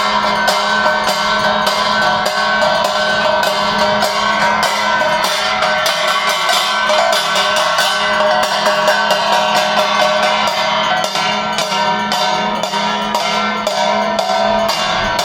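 Evening arati music: fast, even percussion strikes, several a second, over steady ringing metallic tones, as from temple bells, hand cymbals and drums played together.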